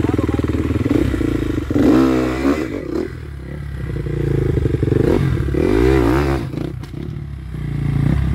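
Dirt bike engine running, then revved up and back down in surges, about two seconds in, around six seconds and again near the end, with a few knocks in between.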